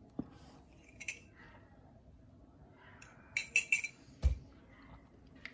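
Handling noise as a baseball cap is turned on its display stand: a few light clicks and clinks, a quick run of three or four clicks about three and a half seconds in, then one dull knock.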